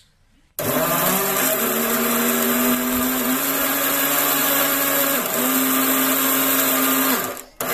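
Electric mixer grinder (mixie) running loaded, grinding grass and water into a pulp. It starts about half a second in and runs steadily with a high motor whine, which dips briefly about five seconds in and recovers. The motor winds down near the end, with one short burst just after.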